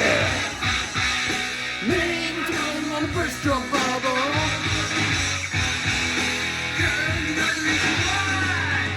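Hard rock music with electric guitar, drums and a male singing voice.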